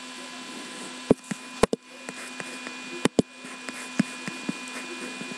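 Irregular sharp clicks of a computer mouse and keyboard, several in quick pairs, over a steady low hum and hiss.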